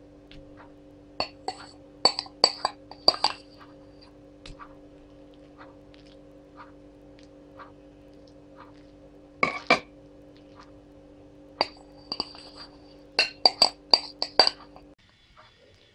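Metal spoon clinking and tapping against a white bowl while knocking out dollops of mayonnaise, in three runs of quick ringing strikes, with a faint steady hum underneath.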